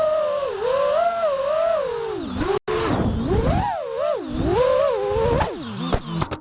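FPV quadcopter's T-Motor Slatts 2306 brushless motors and propellers whining, the pitch rising and falling quickly with the throttle. The sound drops out briefly a little past the middle and cuts off suddenly at the end.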